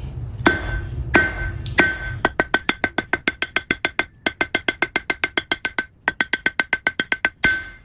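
Hand hammer striking hot iron on the face of an anvil, flattening the scraping end of a hand-forged Huntley spoon. Three spaced blows, then quick runs of several ringing strikes a second broken by short pauses, with a louder blow near the end.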